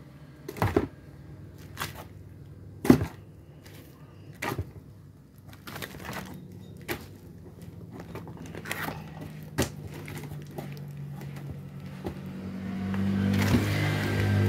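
Scattered knocks and thuds as heavy, thick-skinned cempedak fruits are picked up and dropped into a bucket, the loudest about three seconds in. A low steady hum builds underneath and is loudest near the end.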